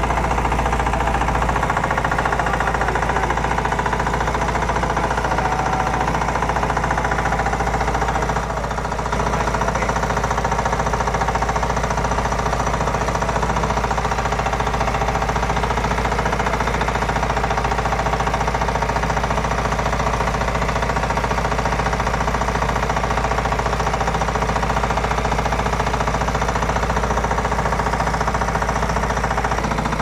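Fishing boat's engine running steadily with a hard, knocking beat, dipping slightly about eight seconds in.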